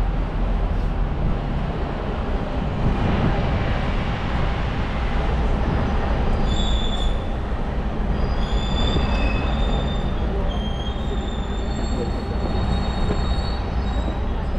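Tour bus on the move: a steady low engine and road rumble, with thin high-pitched squeals coming and going through the second half.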